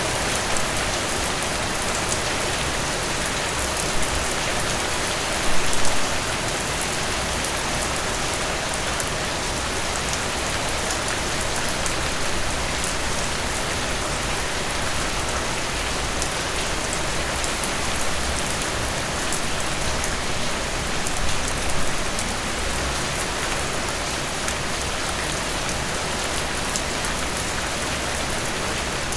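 Steady rain falling, a dense patter of drops over an even hiss, with a few briefly louder moments, the strongest about five and a half seconds in.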